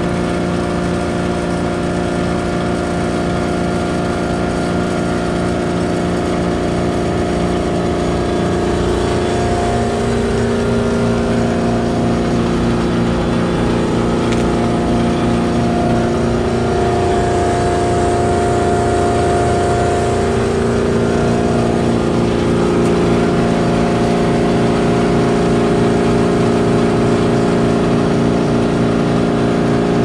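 Twin-fan Carrier Gemini heat pump outdoor unit running: compressor and condenser fans give a steady mechanical hum made of several steady tones, growing slightly louder.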